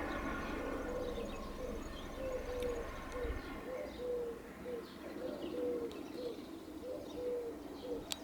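Church bells dying away in the first second, leaving a dove cooing in a repeated phrase of short and longer low notes, with faint chirps of small birds.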